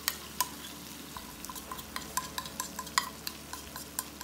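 Chicken pieces frying in oil in a non-stick frying pan, crackling with irregular sharp pops, several a second, as a thick ground masala paste is poured over them.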